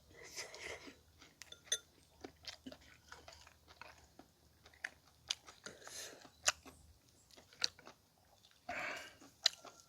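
A person chewing and biting on boiled pig's trotters close to the microphone, with irregular sharp mouth clicks and short wet chewing sounds.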